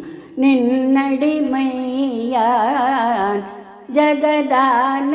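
A woman singing a Carnatic devotional song in raga Sahana, Adi tala, her melody wavering in ornamented glides, with a brief break about four seconds in before the next phrase.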